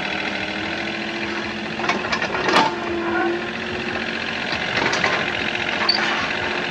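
A machine running steadily, with a fine, even mechanical chatter and a held hum. A few sharp clicks or knocks come about two seconds in, the loudest at about two and a half seconds, and again near five seconds.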